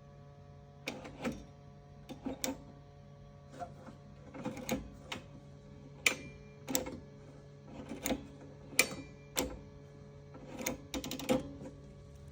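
Lawnmower throttle lever and choke linkage being worked by hand with the engine off: a series of light clicks and knocks, irregular, about one or two a second, over a faint steady hum.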